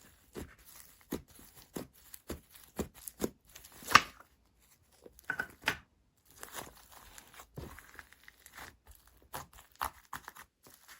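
Slime being squeezed and stretched by hand, making irregular crackling clicks and pops, the loudest about four seconds in.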